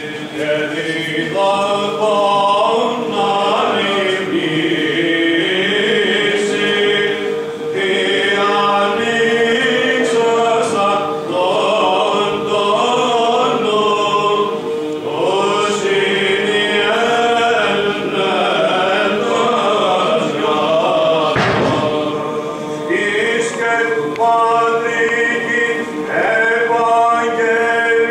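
Men's choir of Orthodox clergy chanting Byzantine chant, the melody moving over a steady held drone (ison).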